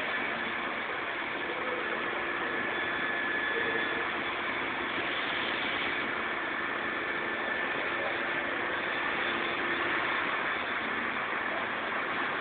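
Large counterbalance forklift's engine running steadily, an even mechanical hum with a faint steady whine over it.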